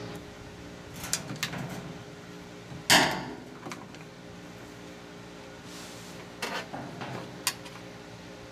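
Screwdriver clicking and knocking against the water pump's retaining clips on a washing machine motor as the pump is pried loose, with one loud sharp clack about three seconds in and a few lighter clicks around it, over a steady low hum.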